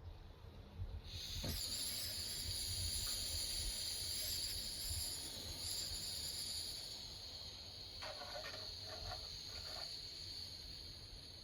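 Steady shrill buzzing of an insect chorus that starts suddenly about a second in, with a few short chirping calls near the end.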